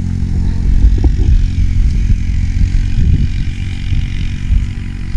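A farm vehicle's engine running as it drives, with an uneven low rumble and scattered knocks and rattles from the ride.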